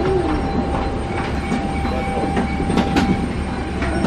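Steady low drone with a thin constant whine from a parked airliner's ground systems at the open boarding door, with a few light knocks of luggage being handled.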